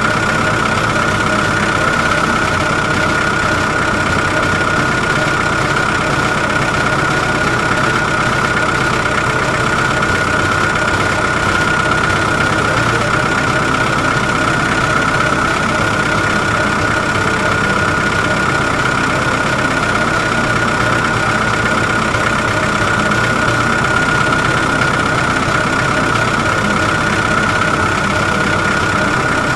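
Electric motors and gearbox of a radio-controlled model excavator running steadily, with a constant high-pitched whine over a mechanical rattle.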